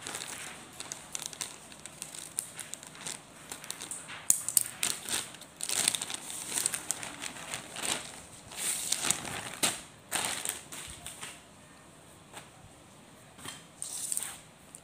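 Clear plastic polybag crinkling and rustling in irregular bursts as it is handled, opened and pulled off a folded garment. It is busiest in the middle, dies down after about eleven seconds, and gives one more short rustle near the end.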